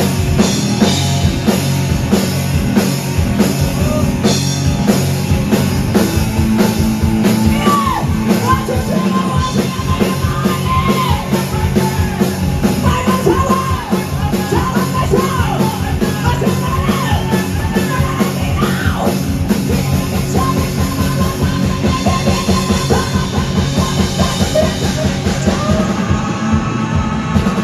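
A rock band playing live and loud: drums, electric guitars and bass with yelled, sung vocals over a driving beat.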